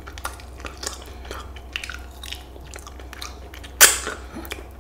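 A person chewing a mouthful of fried chicken wing close to the microphone: soft, wet mouth clicks and smacks. A short, louder rush of noise comes near the end.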